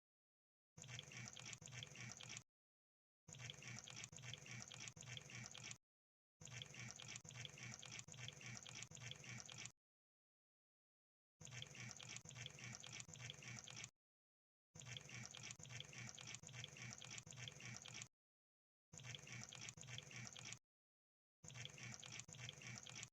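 Crab sound effect: bursts of fast, dense crackling clicks, each lasting a couple of seconds and cut off cleanly by complete silence, about seven times over.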